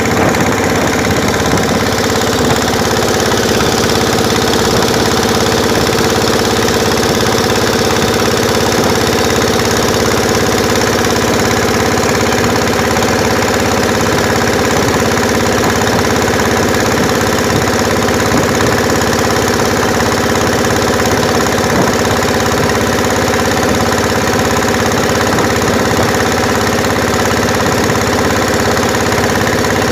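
Engine of a wooden pompong motorboat running steadily while the boat is under way.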